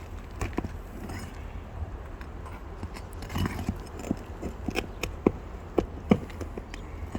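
Irregular sharp knocks and clicks from work on roof shingles being pried up and their nails pulled, coming more often in the second half, over a steady low rumble.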